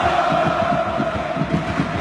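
Stadium crowd of football supporters chanting in unison, the voices held on one long sung note over the crowd's din.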